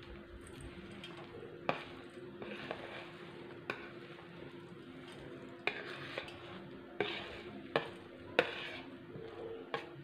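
A metal spoon scrapes crisp fried onions off a plastic plate into a steel mixing bowl. The dry onions rustle, and the spoon clinks sharply against the plate and bowl several times at uneven intervals.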